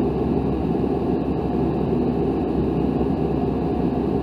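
Tecnam P2002 Sierra's Rotax 912 four-cylinder engine and propeller running steadily in cruise, heard from inside the cabin as an even, low drone.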